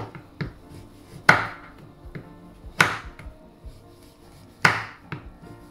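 A kitchen knife shaving a dark chocolate bar into small pieces, its blade knocking down hard on a wooden cutting board three times, with lighter ticks of the shavings in between. Background music plays underneath.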